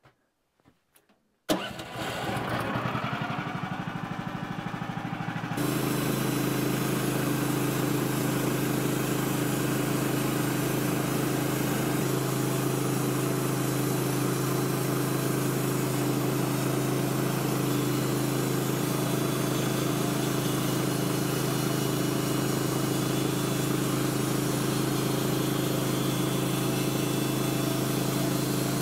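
Woodland Mills HM130MAX sawmill's Kohler engine starting about a second and a half in and running unevenly at low speed. About five seconds in it steps up to a steady full-speed run that holds unchanged.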